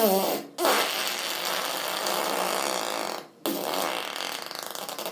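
Fart noises: a short pitched one, then a long hissing one of about two and a half seconds, then another of about a second and a half that ends in a sputter.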